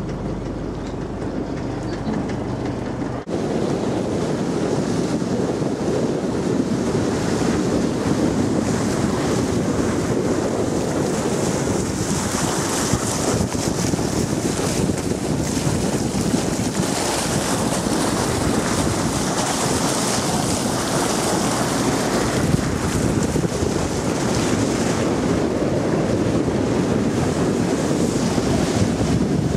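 Wind buffeting the microphone over the steady wash of water around a small boat, with a short break about three seconds in.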